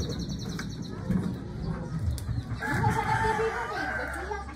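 A rooster crowing once, a long call that starts a little past halfway and lasts about a second and a half.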